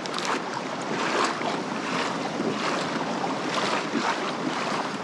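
Water rushing and splashing along a kayak's hull as it moves over the sea, with wind buffeting the microphone. It is a steady, uneven wash of noise with no motor note.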